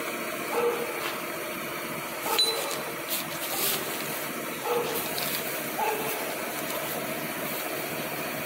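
Steady mechanical running noise in the background, with a few brief light knocks.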